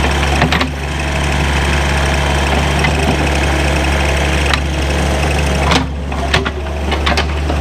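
John Deere 5055E tractor's diesel engine running steadily, with a few sharp knocks about half a second in and again in the second half.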